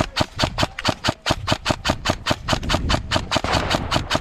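Airsoft gun firing a rapid, even string of shots, about five a second.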